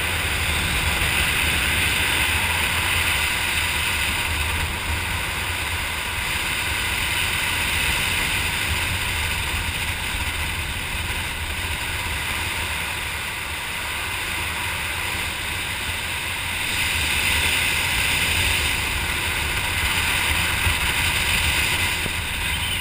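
Steady rushing wind of the airflow over the microphone while flying under an open parachute canopy, swelling louder at the start and again near the end.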